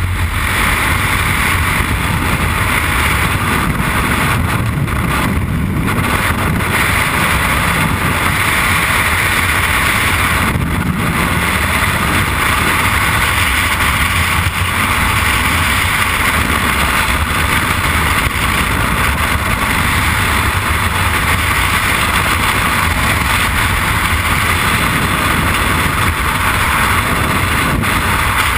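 Steady loud rush of freefall wind blasting over a helmet-mounted camera's microphone during a skydive.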